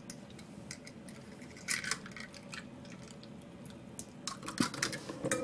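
A plastic Color Changers toy car dipped and moved about in a bowl of water: faint splashes, drips and light knocks. A short cluster comes about two seconds in, and more near the end.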